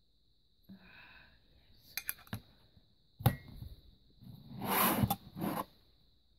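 Small metal candle tins being handled: a few light clicks, a sharp knock about three seconds in, then about a second of scraping with more clicks near the end.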